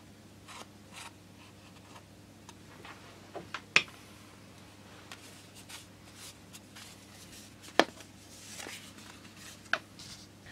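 Hands handling a plastic-film-covered balsa tailplane on a wooden workbench: light rustling with a few sharp clicks and taps, over a low steady hum.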